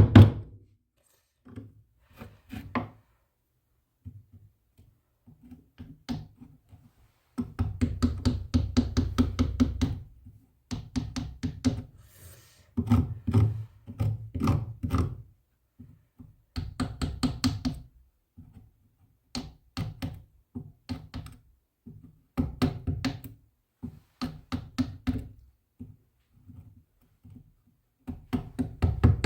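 Rapid knocking at about eight strokes a second, in bursts of one to three seconds with short pauses between them.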